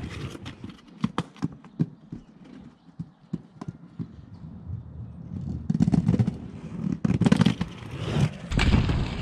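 Inline skate wheels rolling over rough asphalt with a string of sharp clacks and knocks, fading as the skates move away, then louder rolling and knocks as they come back toward the camera, with a loud rush as they pass close near the end.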